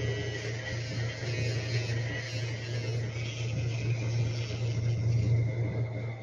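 Battery-powered pet nail grinder running with a steady motor hum while trimming a French bulldog's nails; it gets quieter right at the end.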